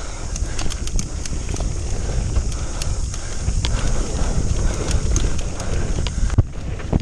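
Mountain bike running fast down a dirt forest trail: a constant rumble of tyres and wind on the camera microphone, with frequent sharp clicks and rattles from the bike over bumps. A high hiss in the noise stops about six seconds in.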